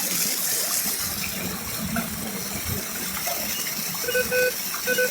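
Waterfall water rushing steadily. Near the end a short pitched tone sounds twice, louder than the water.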